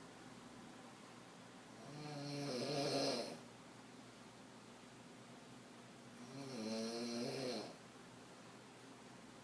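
A woman snoring hard in deep sleep: two snores about four and a half seconds apart, each lasting over a second.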